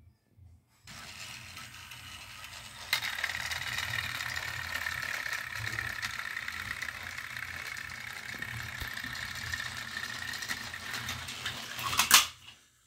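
Battery-powered toy train engines running on plastic track: a steady whirring of small gear motors and wheels that starts about a second in and grows louder about three seconds in, then a sharp loud clatter near the end before it stops.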